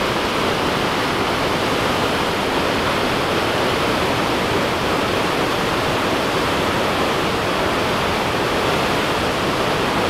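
Cascada Los Alerces, a large waterfall on the Manso River: a heavy volume of glacial water falling and crashing into the gorge, a dense, steady rushing that does not change.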